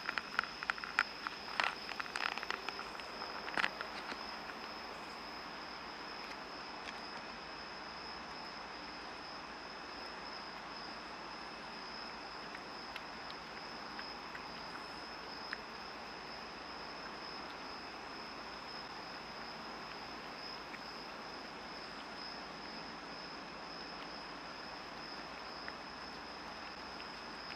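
Steady, high-pitched insect song running unbroken, with a cluster of light clicks and taps in the first four seconds.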